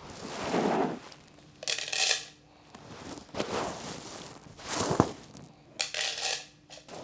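Dried corn kernels tossed out by the handful to chickens, a rustling scatter about every second and a half.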